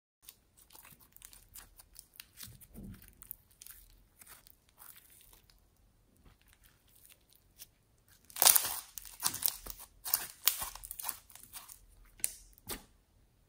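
Hands squeezing and stretching pink floam and glitter slime: a run of crackling clicks and sticky pops, densest and loudest in the last five seconds.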